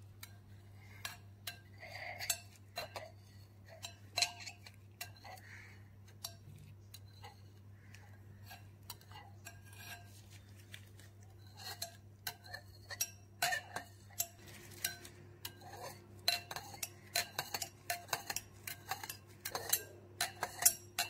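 Metal spoon stirring liquid jelly in a glass bowl, clinking irregularly against the bowl's sides and bottom. The clinks come more often and louder in the second half. A steady low hum runs underneath.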